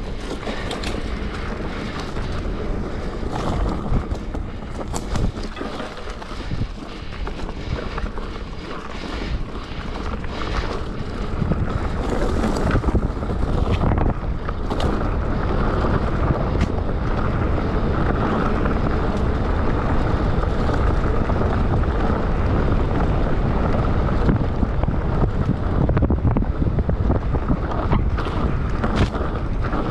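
Wind buffeting the microphone of a mountain bike's camera while riding a dirt trail, over the rumble of tyres rolling on dirt, with scattered short knocks and rattles from bumps. It gets somewhat louder about twelve seconds in, as the speed picks up.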